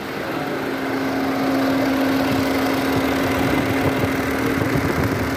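Volkswagen Vento's electric radiator cooling fan running with a steady hum over the idling engine, getting louder over the first second or two. The fan is working again, its motor fitted with new bearings.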